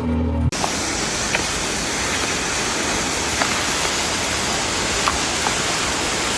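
A steady, even rushing noise with a few faint ticks scattered through it, after a brief low hum that cuts off about half a second in.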